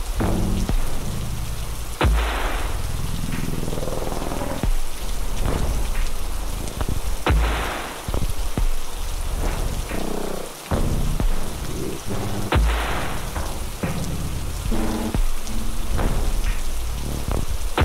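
Background music: a dark, sustained track with a heavy hit about every five seconds over a steady rain-like hiss.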